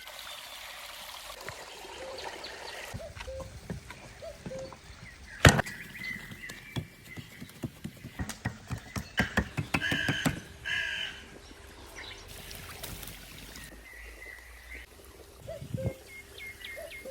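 Outdoor sounds: short bird-like chirps over a faint steady background, with a run of sharp clicks and knocks. The loudest is a single knock about five and a half seconds in.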